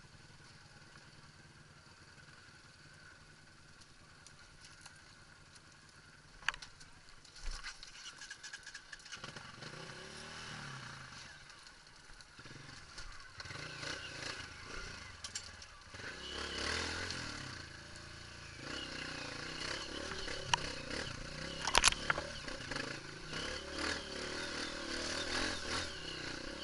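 Honda CRF dirt bike's single-cylinder four-stroke engine, faint and low at first, then revving up and down from about a third of the way in as the bike works over rocks. Sharp knocks and clatter from the bike on the rocks come through, the loudest a bit over three-quarters of the way in.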